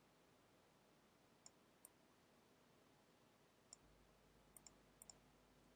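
Faint computer mouse clicks, about seven short sharp ones spread unevenly over near silence, most of them in the second half.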